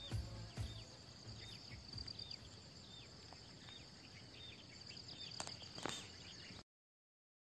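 Faint outdoor rural ambience: a steady high insect drone, with a bird repeating a short falling chirp about every half second. A few low thumps come near the start and two clicks near the end, then the sound cuts off abruptly.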